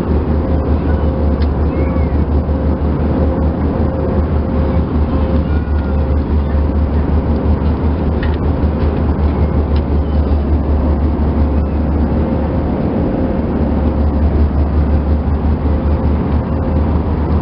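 Airbus A319 passenger cabin noise: a loud, steady low rumble of engines and rushing air, with a faint steady hum that fades near the end.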